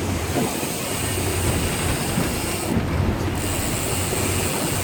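Fishing boat's engine running steadily under way, with a thin high whine that drops out briefly near the middle.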